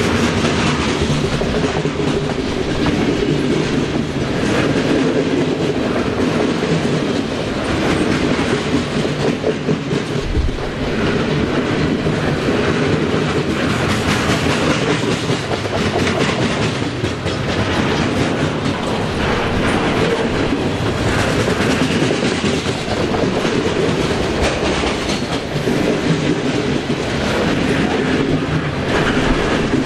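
Freight train cars (boxcars and tank cars) rolling past, a steady noise of steel wheels on rail with repeated clacks from the wheels.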